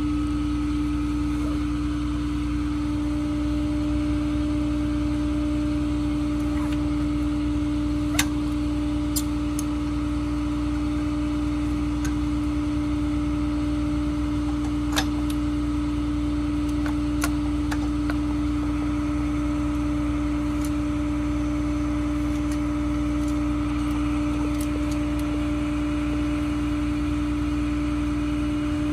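Tow truck engine idling with a steady hum, while a ratchet tie-down strap is threaded and handled at the wheel-lift cradle, giving a few light metallic clicks.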